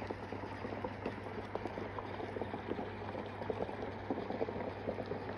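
Self-heating hot pot boiling under its closed lid, heated by a heating pack set in cold water: a steady, dense bubbling made of many small pops.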